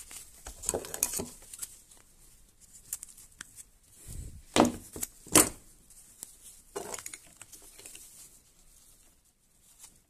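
Workbench handling noises as black insulating tape is pulled from its roll and pressed over a small circuit board's light sensor: scattered rustles, clicks and knocks, with two louder sharp sounds about halfway through.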